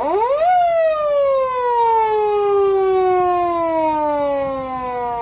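Police-car siren sounding a single wail: the pitch climbs sharply for about half a second, then slides slowly down and the sound eases off near the end.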